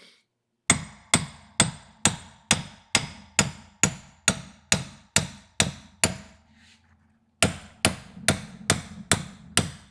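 Hammer blows on a drift, driving the old kingpin bushing out of an early Ford spindle: sharp metal-on-metal strikes at a steady pace of about two a second, with a faint ringing between them. The blows stop for about a second a little past halfway, then start again at the same pace.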